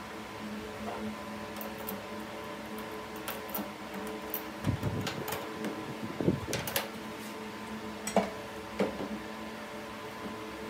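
Steady machine hum, with a handful of sharp metallic clicks and knocks as a lathe cutting tool is seated and clamped in the steel toolpost. The knocks are bunched in the middle of the stretch.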